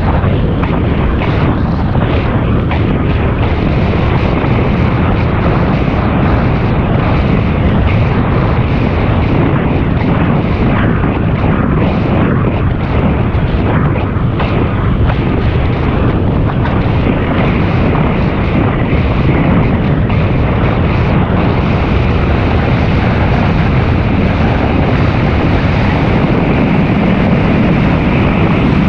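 Steady, loud rush of wind over the microphone of a camera riding on a bicycle moving along pavement, mostly low and unchanging.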